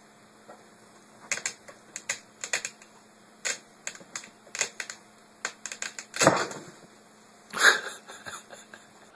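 A cat shifting about inside a cardboard storage box: irregular clicks and scratches of claws and cardboard, with two louder rustles about six and seven and a half seconds in as it settles down into the box.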